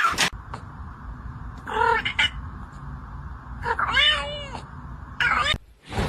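A cat meowing three times, each call rising and falling in pitch, over a steady background hiss.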